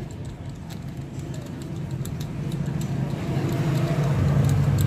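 A motor vehicle engine running in the background, its low hum growing steadily louder toward the end, over scattered clicks of a ratchet wrench tightening the through-bolts of a motorcycle starter motor.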